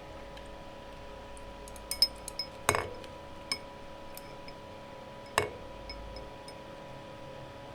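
Plastic keyboard keycaps being handled, giving a handful of sharp clicks and clinks: a cluster about two to three and a half seconds in, then one more near five and a half seconds. A faint steady electrical hum runs underneath.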